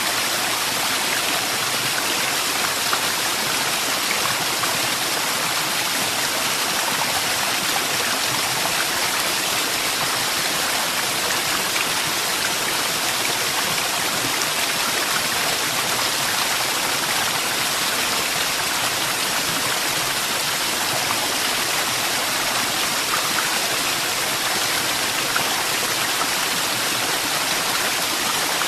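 Waterfall: a steady rush of falling water, an even hiss with most of its weight in the upper range and no change in level.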